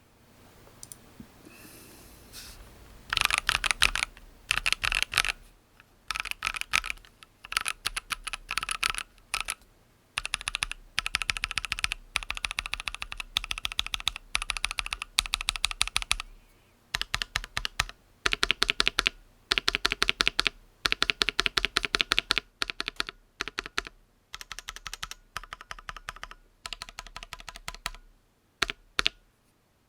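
Typing on a Keychron Q1 mechanical keyboard with lubed Boba U4T 62 g tactile switches: rapid key clacks in bursts of a second or two with short pauses between them, starting faintly and becoming loud about three seconds in.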